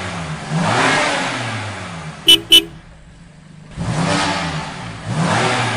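Toy car engine-revving sound effect: repeated rising revs, broken about two seconds in by two short, loud horn beeps and a second's lull before the revving starts again.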